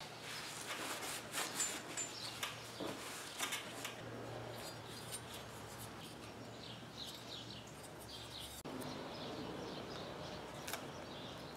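Workbench handling sounds: small clicks, taps and scrapes from tools and parts being handled while a lawn tractor starter motor is cleaned and masked with painter's tape. The sound changes abruptly about three-quarters of the way through.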